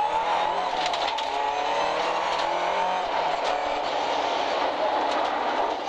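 Opel Ascona B rally car's four-cylinder engine running under load through a hairpin, heard from inside the cabin, with a steady engine note and the noise of tyres on a gravel road.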